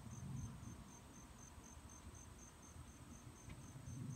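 Crickets chirping in a steady, even rhythm of about four high chirps a second over a continuous higher trill, with a faint low rumble underneath.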